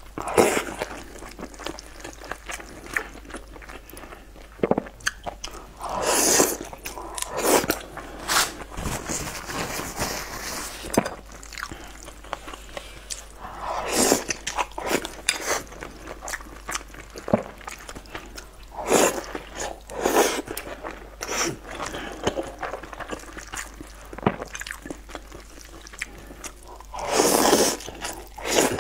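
Close-miked eating sounds: wet chewing and mouth clicks as someone eats saucy noodles and cabbage with chopsticks. Louder noisy bursts come every several seconds as each new mouthful is taken in.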